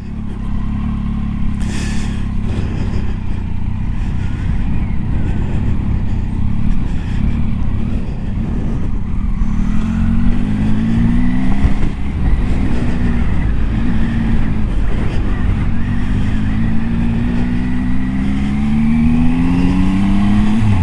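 Triumph Tiger 800 XCA's three-cylinder engine pulling the bike along a gravel track. Its pitch rises as it accelerates about halfway through, drops off briefly, then climbs again near the end, over a steady rumble of wind and tyre noise.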